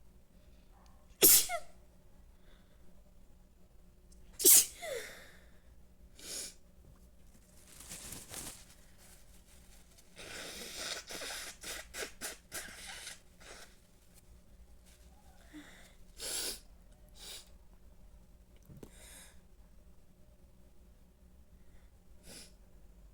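A person sneezing: two loud, sharp sneezes, about a second in and about four and a half seconds in, followed by several fainter noises over the rest of the stretch.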